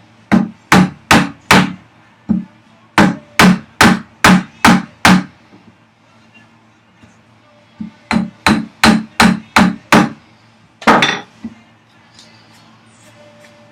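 Mallet blows on a chisel cutting into the wooden vise chop, widening the opening for the guide rods. There are about a dozen sharp strikes at a steady pace of two to three a second, a pause, then another run of about six, and one duller, longer knock near the end.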